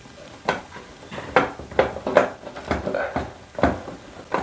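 Hand screwdriver turning a screw into the metal cover of an LED bathroom vanity light, with short metallic clicks and scrapes at about two a second.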